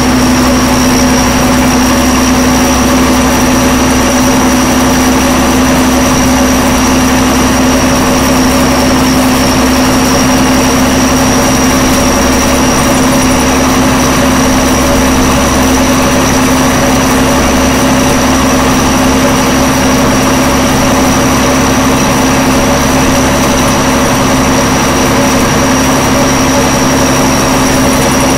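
M35A2 two-and-a-half-ton army truck's turbocharged six-cylinder multifuel engine running steadily under way, heard from inside the cab as a loud, even drone with a steady high whine over it.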